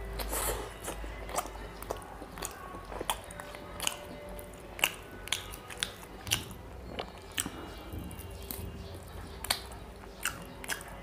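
Close-miked eating of curried chicken drumsticks: meat bitten off the bone and chewed with wet mouth smacks, many sharp irregular smacks and clicks.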